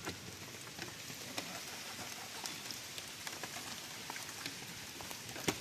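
Rain falling steadily, with scattered drops ticking on nearby surfaces and a sharper tap a little before the end.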